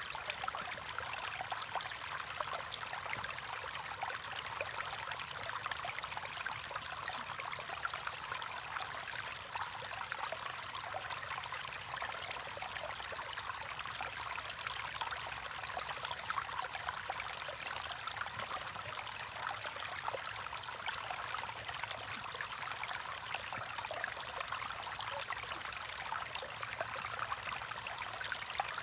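A stream running steadily: a continuous watery hiss with fine splashing and little low rumble.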